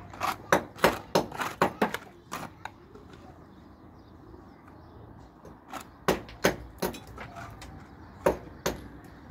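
Repeated sharp knocks of hand tools at building work. There is a quick run of about ten in the first two and a half seconds, a quieter stretch, then about six spaced strikes in the second half.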